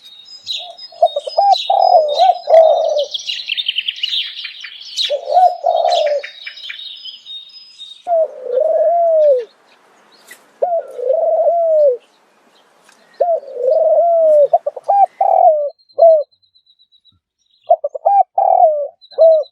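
Doves cooing in repeated short phrases, each coo a low note that rises and falls. Smaller birds chirp and twitter rapidly over the coos during the first half, then stop.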